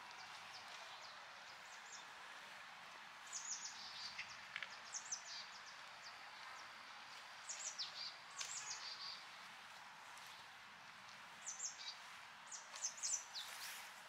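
Stream water flowing with a steady, faint rush, and a small bird calling in three bursts of quick, high chirps that fall in pitch.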